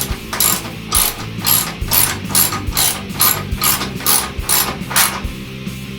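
Ratchet clicking in a steady rhythm of about two to three strokes a second as screws are driven in to fasten a washing machine's lid latch switch assembly. It stops about five seconds in.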